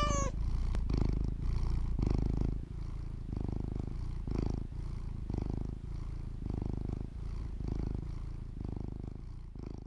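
Tabby cat purring steadily, the purr swelling and easing about once a second with each breath in and out, with the tail end of a meow right at the start.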